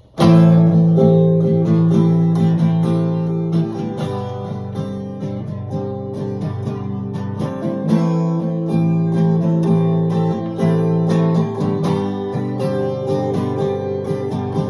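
Acoustic guitar playing an instrumental intro, with chords strummed and plucked; it starts abruptly.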